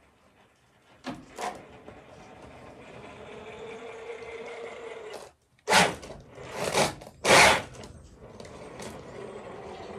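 Electric motor of a scale RC crawler truck whining as it climbs a ramp of loose wooden planks, with its tyres and chassis knocking on the boards. There are two light knocks about a second in, and three loud clattering knocks past the middle.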